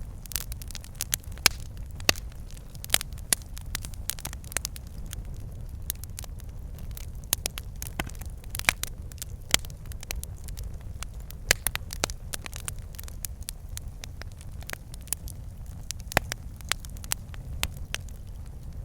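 Wood fire burning in a fireplace: logs crackling and popping with irregular sharp snaps over a steady low rumble of the flames.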